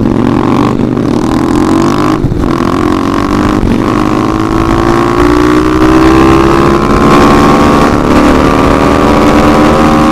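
SSR pit bike's small single-cylinder engine under way, heard from the rider's seat: the revs break off briefly three times in the first four seconds as it shifts up, then the pitch climbs slowly and steadily as the bike gathers speed.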